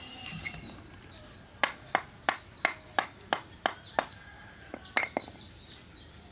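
Horse hooves clopping on hard ground: a run of about eight sharp, evenly spaced knocks, about three a second, then a short pause and two more close together.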